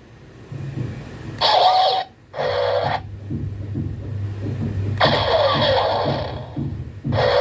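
Zurg robot toy running: a steady motor hum starts about two seconds in, with four short bursts of electronic sound effects from its speaker over it.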